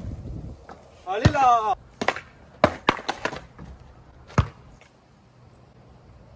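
Skateboard deck clacking and slapping on asphalt in a run of sharp knocks through the first few seconds, with a heavier, deeper thud about four seconds in.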